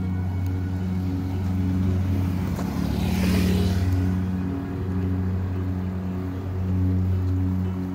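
A vehicle passing close by, its noise swelling and fading about three seconds in, over ambient music with a steady low drone.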